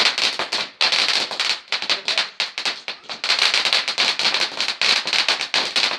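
Firecrackers going off in a rapid, dense crackle of many small bangs, easing off briefly twice.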